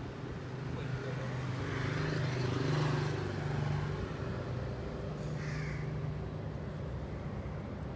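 A steady low hum with a swell of noise in the third and fourth seconds, and a short bird call about five and a half seconds in.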